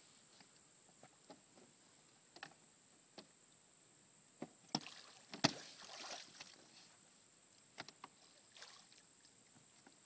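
Light splashing and scattered small knocks in shallow creek water, with a sharper splash about five and a half seconds in.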